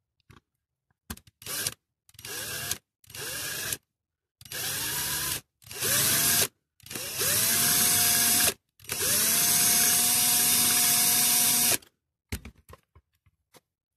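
Electric drill run in a series of bursts, short at first and then several seconds long, each rising in pitch as it spins up and then holding steady: drilling out the rivets that hold the base of a die-cast Dinky toy. A few light clicks follow near the end.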